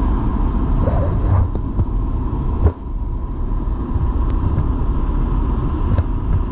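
Steady drone of a small propeller plane's engine heard inside the cabin, low and rumbling with a steady high whine over it. A brief knock comes about two and a half seconds in, after which it is a little quieter.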